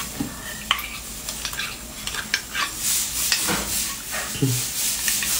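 Metal skewer scraping and clicking against the inside of a split beef marrow bone as marrow is dug out, with irregular short clicks and wet, sticky noises.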